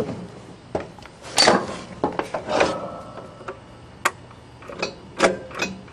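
Scattered clicks, knocks and a couple of short rustles from hands handling the John Deere lawn tractor as it is readied to start; its engine is not running.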